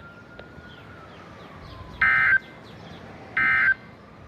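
NOAA Weather Radio's SAME digital data tones sending the end-of-message code that closes an Emergency Alert System warning: two short blips of warbling data, each about a third of a second, a little over a second apart, over the receiver's steady hiss.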